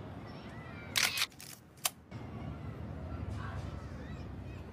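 Single-lens reflex camera shutter firing twice: a longer burst about a second in, then a short sharp click just under a second later.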